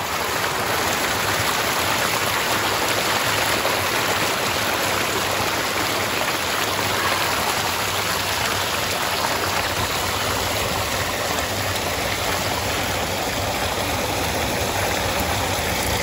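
Water of a small waterfall pouring and splashing over rocks, a steady rushing close to the falling water.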